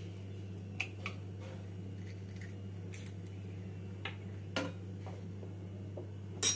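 A few small clicks and taps as an eggshell is pulled apart and the raw egg is tipped out, over a steady low hum, with a sharper click near the end.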